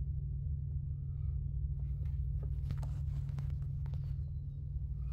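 Steady low hum of a vehicle cabin, with faint clicks and rustles from about two seconds in.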